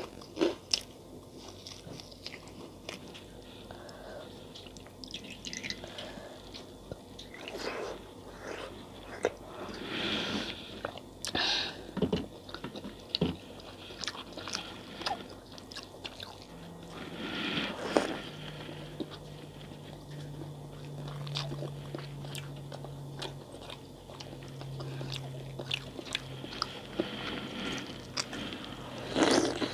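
Close-miked eating sounds: biting, crunching and chewing of a fried pakora, then softer chewing of syrup-soaked rajbhog sweets. A faint steady low hum comes in about halfway.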